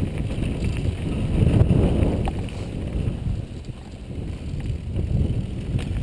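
Mountain bike riding down a dirt trail: wind buffeting the microphone and tyre rumble make a loud, uneven low roar, with a few sharp clicks.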